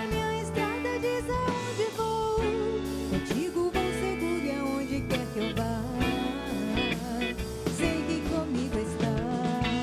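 Live band playing a Christian pop song: guitars, bass, keyboard and drums, with a woman's voice singing a wavering melody over them.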